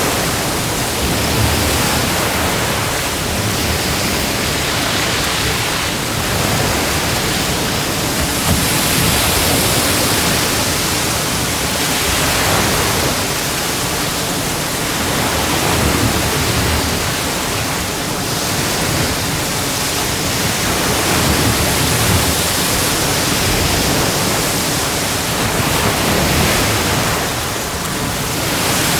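Sea waves breaking and washing onto a beach: a continuous rushing noise that swells and eases every few seconds.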